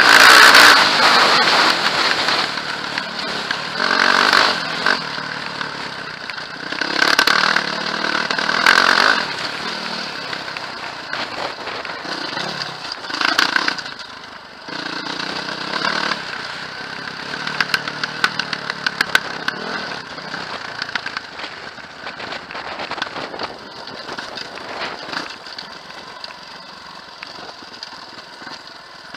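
Mountain bike rolling down a rough dirt and gravel trail: tyre and riding noise that swells and fades, loudest in the first couple of seconds, with scattered sharp clicks and rattles through the second half.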